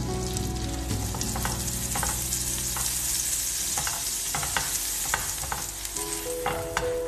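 Melted butter sizzling in a hot grill pan, a steady hiss with scattered crackling pops, as a silicone brush spreads it over the ridges.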